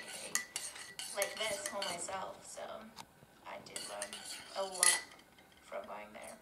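A metal teaspoon stirring coffee in a ceramic mug, clinking repeatedly against the sides with short ringing chinks.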